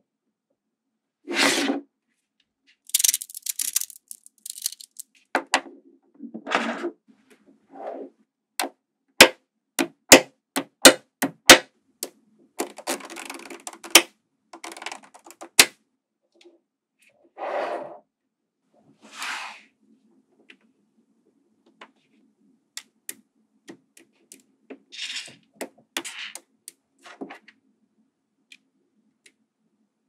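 Small magnetic balls clicking and rattling as built pieces are handled and snapped together by hand, in short bursts with pauses between. Midway comes a quick run of about eight loud, sharp clicks.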